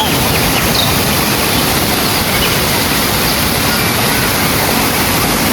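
Waterfall rushing, a loud, steady wash of falling water close to the phone's microphone, cutting in suddenly at the start.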